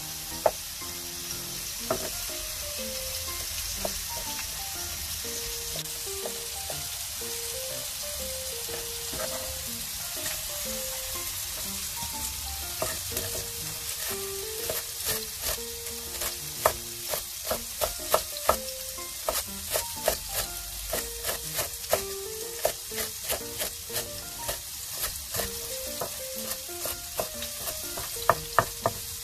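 Cleaver chopping on a wooden cutting board: a few scattered strikes while shiitake mushrooms are sliced, then from about twelve seconds in a quicker, even chopping of about two to three knocks a second as celery is diced. Soft background music and a steady hiss lie underneath.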